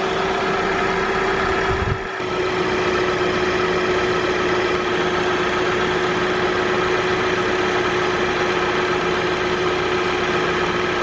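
Kia Forte's engine idling with a steady whine over it, the air-conditioning compressor running as the system is charged with R-134a refrigerant. The sound briefly dips about two seconds in.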